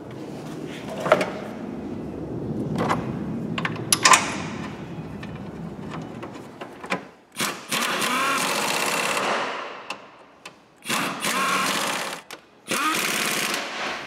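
Power ratchet whirring in three bursts, its motor speeding up and slowing, as it runs down the engine-mount bolts on a Peugeot 307's 1.6 petrol engine. Before the first burst come the clinks and knocks of metal parts being set in place by hand.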